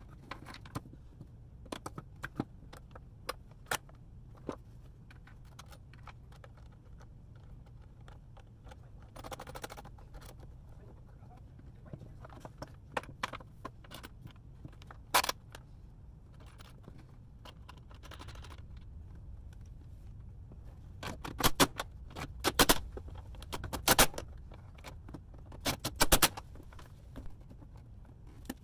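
Metal clinking and clicking as heavy battery cables with ring terminals and busbar nuts and washers are handled. Scattered single clicks give way to bunched, louder clinks over the last several seconds.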